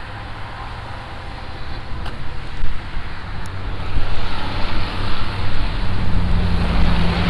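A car on a snowy street, its engine and tyres on slush growing louder about halfway through, with a steady engine hum near the end.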